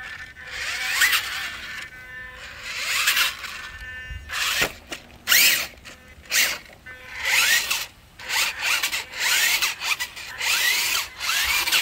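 Electric drive motors of a Grave Digger Freestyle Force RC monster truck whining in repeated bursts, about a second each, the pitch rising and falling as the truck drives, stops and does its tricks.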